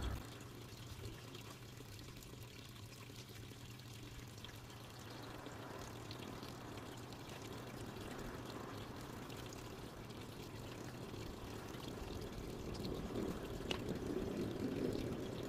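Water trickling steadily in a garden fish pond, over a low steady hum, with a single click near the end.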